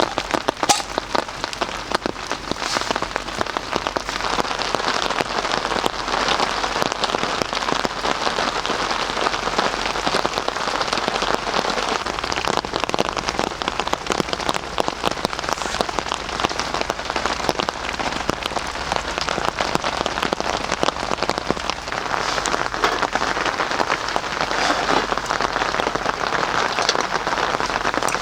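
Steady rain falling, a dense hiss made of countless small drop hits.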